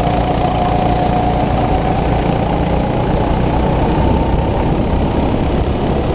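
Racing kart engine running at speed under throttle, its pitch rising slowly over the first few seconds, heard onboard with heavy wind noise across the microphone.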